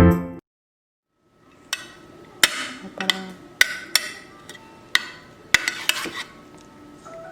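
Music stops abruptly, then a series of short, sharp knocks and clicks of hard objects being handled and set down, irregularly spaced, about ten in all.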